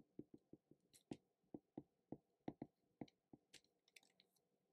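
Faint, quick, irregular taps and clicks of a stylus on a tablet screen while handwriting, about fifteen in all, stopping near the end.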